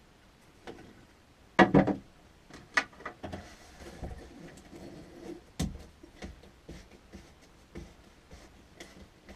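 Hands gripping and working the through-hull log paddle-wheel fitting: scattered clicks and knocks of handling, with a loud cluster of knocks about one and a half seconds in and another sharp knock about five and a half seconds in.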